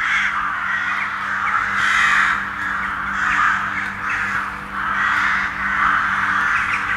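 A flock of birds calling all at once: a loud, dense mass of overlapping calls that swells and dips every second or so.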